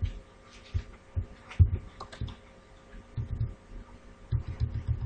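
Computer keyboard and mouse clicks picked up as dull thumps: scattered single clicks, the loudest about a second and a half in, then quick runs of key presses in the second half.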